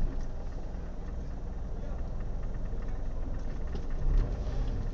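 Car engine idling with a steady low rumble, heard from inside the cabin, with faint voices from people in the street and a brief louder low bump about four seconds in.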